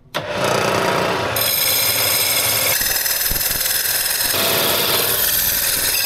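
Bridgeport knee mill starting up and running a small parting saw on its arbor, a steady loud whine with the blade cutting into a hand-fed workpiece; the sound turns brighter about a second in and changes again in the middle.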